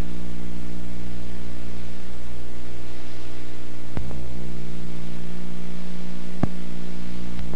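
Loud steady electrical mains hum with its overtones over tape hiss, from an old videotape recording. Two sharp clicks break through, about four seconds in and again about six and a half seconds in.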